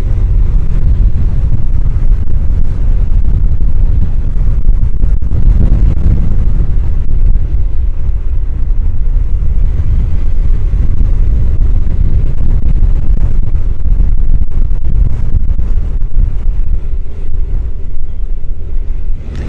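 Loud, steady wind rush and buffeting on a helmet microphone mounted behind the chin-bar air vent, over a Honda CBR1000F motorcycle riding at road speed.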